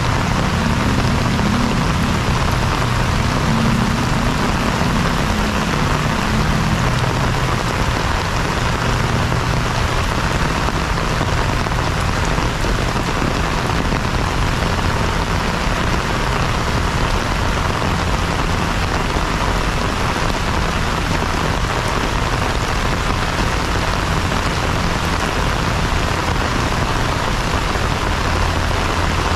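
Heavy rain pouring steadily onto a paved plaza, a dense, even hiss of rain on wet pavement and puddles. A low rumble underlies it for the first several seconds.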